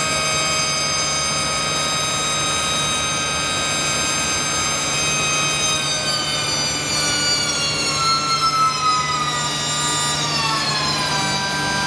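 A motor-driven machine running with a steady whine over a hum. Its pitch slowly drops from about halfway through to near the end, then holds steady.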